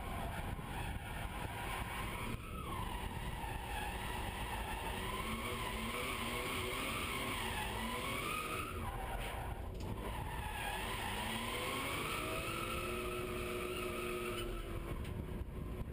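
BMW E36 M3's straight-six engine heard from inside the cabin while drifting, the revs climbing again and again, over the squeal of the sliding tyres.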